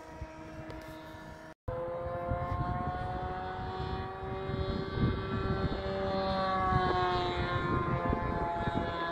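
Radio-controlled model biplane's engine and propeller running steadily in flight overhead. The pitch sinks slowly and then rises again as the plane passes. The sound drops out completely for a moment about a second and a half in.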